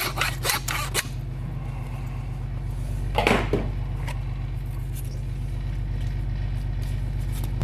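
Steady machine hum, typical of the butcher truck's engine or generator running. Rapid rasping strokes fill the first second, and there is one scrape about three seconds in.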